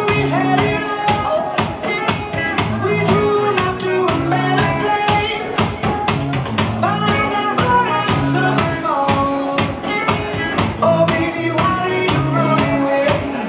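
Upbeat rock-style music with a steady drum beat.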